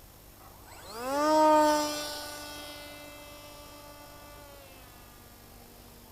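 Electric motor and propeller of the HobbyKing Phantom FPV plane spinning up: a whine that rises quickly in pitch about a second in, holds one steady pitch, then fades out over a few seconds.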